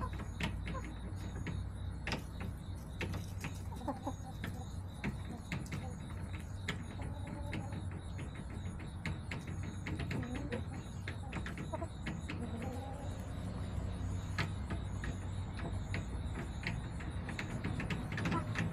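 Backyard hens clucking now and then with short, bending calls, among many sharp taps and clicks.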